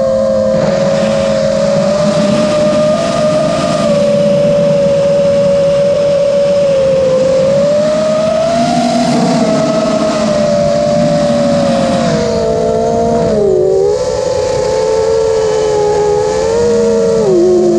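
The brushless motors and propellers of a 5-inch FPV freestyle quadcopter, recorded by its onboard camera: a loud whine whose pitch rises and falls with the throttle. The pitch drops sharply about three-quarters of the way through and again at the very end.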